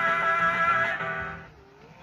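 Guitar music played through the Gemmy Buck the Singing Deer animatronic's built-in speaker, fading away from about a second in.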